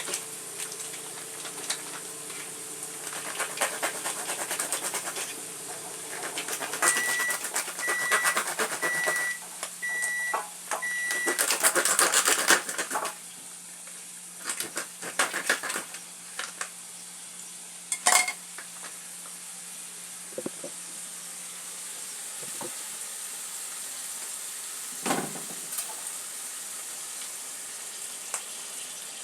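Kitchen clatter of dishes and utensils being handled, with a run of short, evenly spaced high beeps from an appliance about a quarter of the way in, over a steady low hum.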